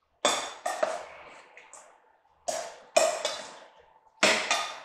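Metal spoon clanking against a metal mixing bowl while stirring shredded chicken in barbecue sauce: six sharp ringing clanks in three pairs, each fading out with a metallic ring.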